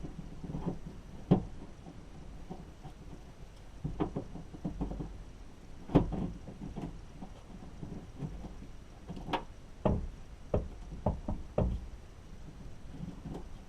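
Irregular knocks and clicks of hard parts being handled and fitted on a car door while the outside door handle is put back in. The two loudest knocks come about a second in and about six seconds in, and a quick run of several follows near the end.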